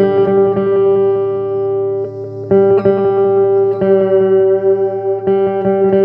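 Electric guitar improvising slow, ringing chords, each held for a second or more, with a short dip in sound about two seconds in.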